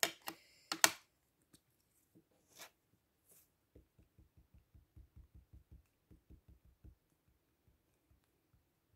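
A few sharp clicks, then a run of soft rapid taps, about six a second for some three seconds with a brief break. The taps come from a small ink pad being dabbed onto a craft stamp mounted on a clear acrylic block.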